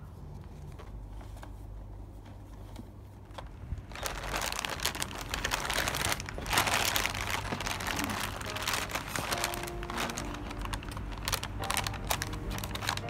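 Plastic poly mailer bag crinkling and rustling as hands handle it, starting about four seconds in and continuing as a dense crackle. Faint music with held notes comes in underneath near the middle.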